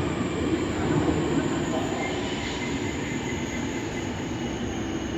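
Train rolling along the rails through a station, a steady dense rumble that eases slightly toward the end, with a faint thin wheel squeal about two seconds in.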